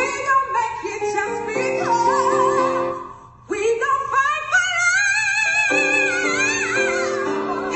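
A gospel song: a solo voice sings a long wordless run with wide vibrato over sustained keyboard chords. It breaks off briefly about three seconds in.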